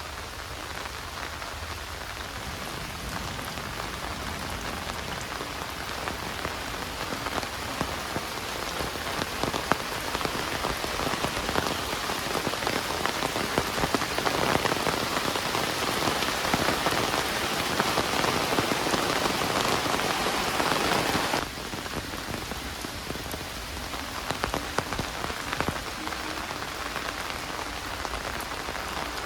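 Heavy rain falling steadily, a dense hiss with fine patter of drops. It grows louder toward the middle, then drops suddenly to a softer level about two-thirds of the way through.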